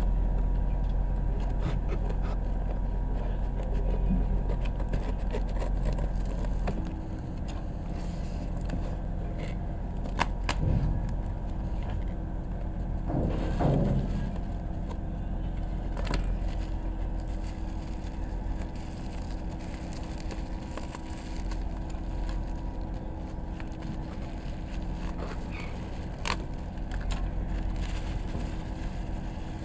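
Hands handling a cardboard parcel and its bubble wrap: scattered scrapes, clicks and a short plastic rustle, over a steady low mechanical hum.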